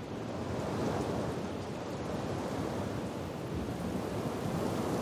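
Rain falling steadily with a low rumble of thunder, swelling slightly louder toward the end.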